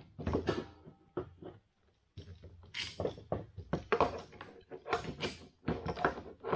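Irregular clicks, knocks and rattles of bar clamps being fitted and tightened, pressing steam-bent wood strips against a bending form.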